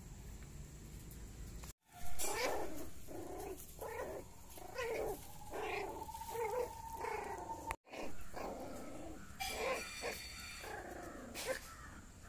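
Pomeranian puppies play-fighting, giving a run of short, repeated high yips and whines that starts about two seconds in. The sound cuts out completely for a moment twice.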